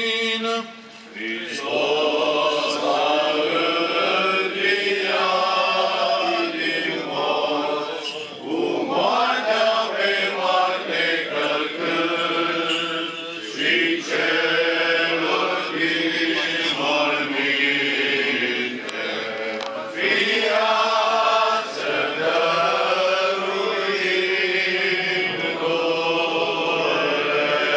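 Orthodox liturgical chant sung by male voices, a continuous melodic line moving up and down in pitch, with a short break about a second in.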